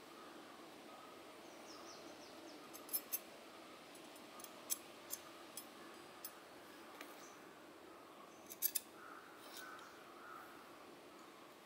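Light metallic clicks of homemade steel-rod blacksmith tongs being handled, their jaws and pivot knocking together: about eight scattered clicks, with close pairs about three seconds and eight and a half seconds in, over a faint steady background.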